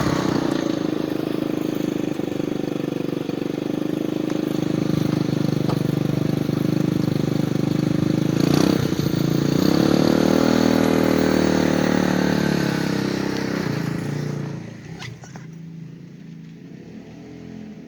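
SUNL 150cc buggy engine running, with a sharp knock about halfway through, after which the engine revs up and eases back down; near the end the sound drops away suddenly.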